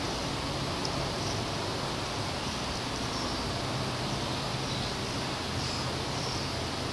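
Steady background hiss with a faint low hum, no sound events standing out.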